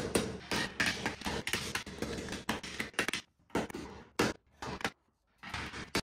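Hammer blows on a sheet-steel car body panel, straightening the bent piece. The blows come in a quick run of several a second, then slow to single, spaced strikes over the last few seconds.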